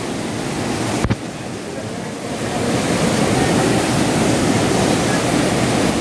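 Steady rush of a waterfall pouring into a rock pool, with one sharp click about a second in; the rush grows louder after about two seconds.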